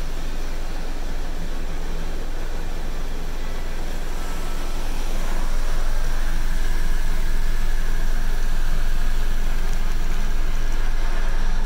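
Automatic car wash sprayers drenching the car's glass and body, a steady hiss and patter of water heard from inside the cabin. The spray gets louder about five seconds in as the windshield is covered.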